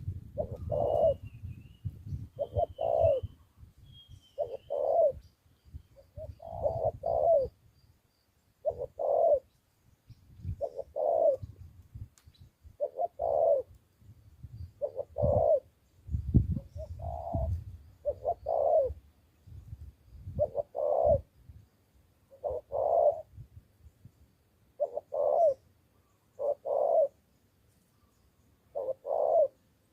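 Spotted dove cooing over and over in short phrases, about one every two seconds. A faint high chirping of another small bird sounds in the first few seconds, and a low rumble lies under the first half.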